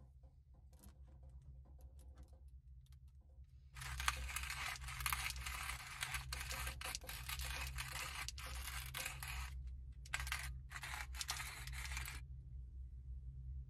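Hand-cranked coffee grinder grinding coffee beans: after a few faint clicks, a dense crunching and rattling starts about four seconds in. It runs for about eight seconds with a couple of brief pauses near the end, then stops.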